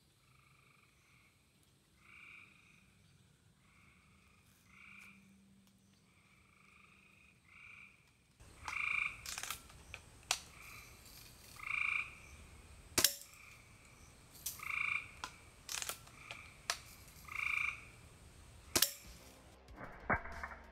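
Frogs croaking, short calls repeating about every second and a half, louder from about eight seconds in. Several sharp cracks of a Daisy spring-air BB rifle firing and BBs hitting the target cut through in the second half.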